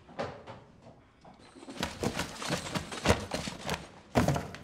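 Cardboard boxes and their contents being pulled off shelves and handled: scattered light knocks, then from about two seconds in a busy run of clattering knocks and rustling, with a sharp thud about three seconds in and another near the end.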